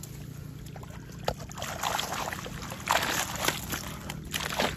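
A mesh fish keep net hauled up out of the water, water sloshing and pouring off the netting in several surges that begin about a second and a half in.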